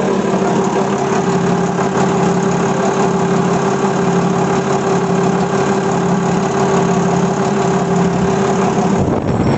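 The forklift's Isuzu 6BG1 inline-six diesel engine idling steadily, heard close up in the open engine bay.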